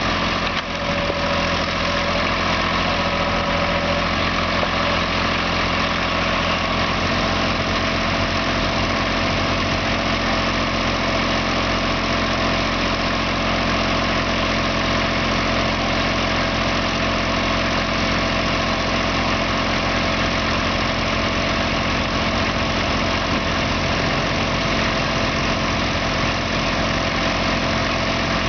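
Small excavator's diesel engine running steadily at an even speed.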